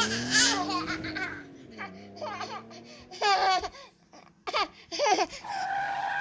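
A baby laughing and squealing in short, high-pitched bursts, over an engine sound effect that dips and rises in pitch and fades out about two seconds in. Near the end a steady, high held tone begins.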